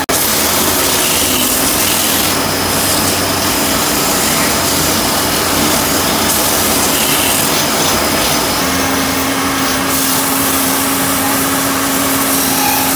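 Wood lathe spinning a turned wooden spindle while sandpaper is held against it by hand: a loud, even sanding hiss over the steady hum of the lathe motor.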